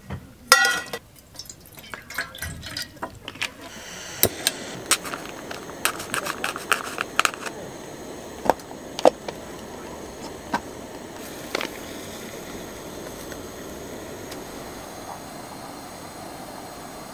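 Metal camp cookware clinking and clattering as pots and a cast-iron pan are handled and set on a portable gas stove, with a few later single clinks. A steady hiss comes in about four seconds in and continues beneath.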